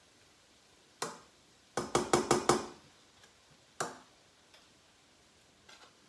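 A metal utensil knocking against a stainless steel frying pan of vegetables: a single clink, then a quick run of about six sharp knocks, then another clink, with a few faint clicks after.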